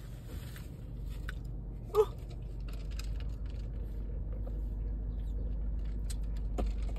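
Low, steady vehicle rumble heard from inside a car, growing a little louder partway through, with one short sharp sound about two seconds in and a few faint clicks near the end.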